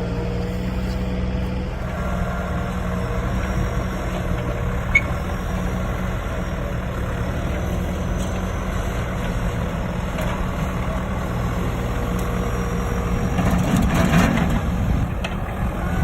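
A motor-vehicle engine idling steadily with a low even hum. A short louder swell of noise comes about fourteen seconds in.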